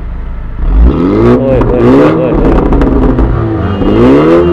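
Mini Cooper car engine revved twice, its pitch climbing and falling back with each blip of the throttle.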